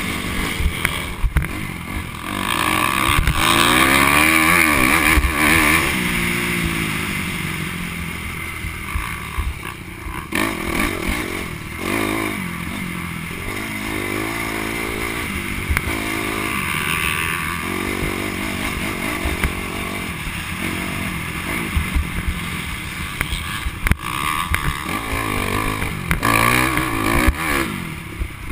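Dirt bike engine heard from the rider's helmet, revving up and dropping back again and again as the rider accelerates and shifts around the track.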